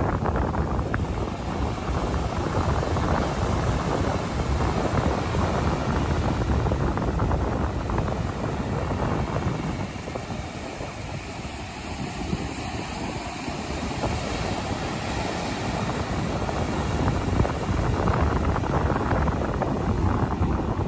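Atlantic surf washing onto a flat sandy beach, with wind buffeting the microphone. The noise eases for a few seconds about halfway through, then picks up again.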